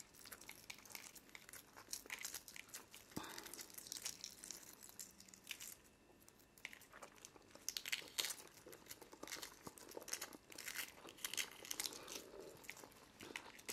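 Hard-boiled eggshells being cracked and peeled by hand, an irregular crackling and crinkling of shell fragments that eases off for a moment about six seconds in.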